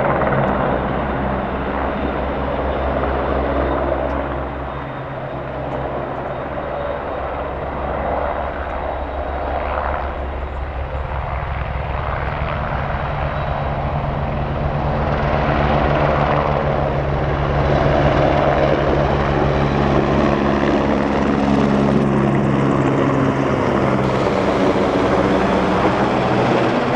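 A helicopter flying low overhead, its rotor thudding and its turbine running steadily. It grows louder about halfway through as it passes close.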